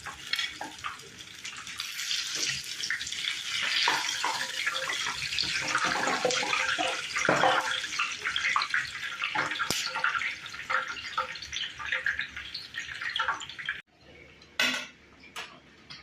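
Water running at a kitchen sink with pots and dishes clattering in it; it stops suddenly about 14 seconds in, followed by two sharp knocks.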